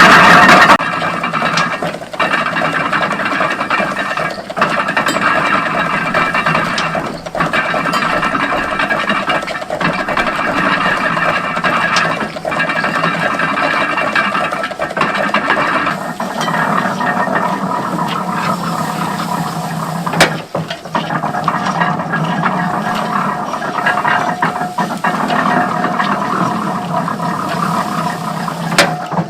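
A 1910 Burrell steam traction engine belt-driving a 1936 Case hay baler: a steady mechanical clatter and hum with a sharp knock about every two to three seconds.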